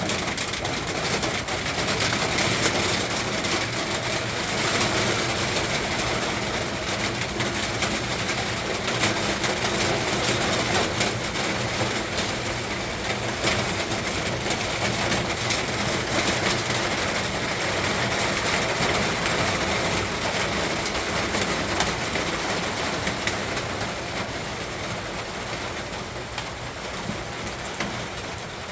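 Steady rain shower falling, with many individual drops ticking on surfaces; it eases slightly near the end.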